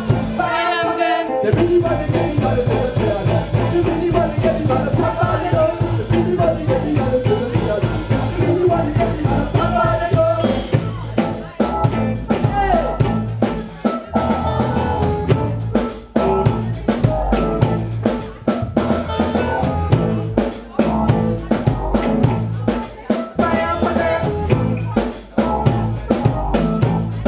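A live reggae band playing: drum kit, electric guitars and bass with lead and backing vocals. The drum strokes stand out more sharply from about ten seconds in.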